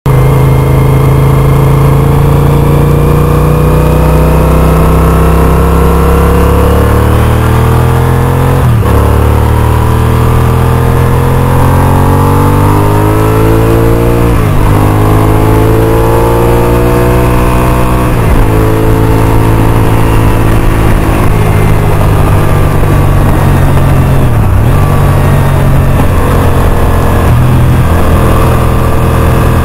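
Honda RC51's V-twin sportbike engine under way, pulling up through the gears: its pitch climbs steadily and drops sharply at each of three upshifts, then it runs at a fairly steady cruise with one brief dip in revs.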